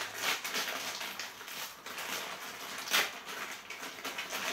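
Plastic packet rustling and crackling in the hands, with a sharper crackle about three seconds in: the packaging of a chainsaw chain being handled and opened.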